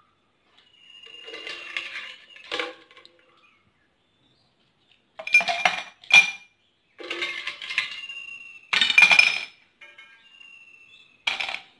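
Ice cubes dropped by hand one after another into an empty drinking glass: a series of sharp clinks, some coming in quick clusters, the glass ringing briefly after several of them. The loudest clinks come about halfway through and again about three-quarters of the way in.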